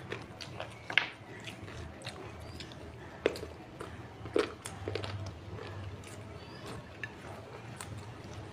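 Close-miked eating sounds of rice and curry eaten by hand: chewing with irregular sharp mouth clicks and smacks, the loudest about a second in and again around three and four and a half seconds in.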